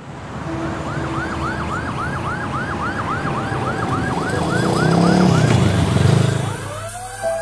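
Emergency-vehicle siren yelping fast, about three sweeps a second, over a low vehicle rumble that swells about five seconds in. Near the end a second siren starts to wind up in a rising wail.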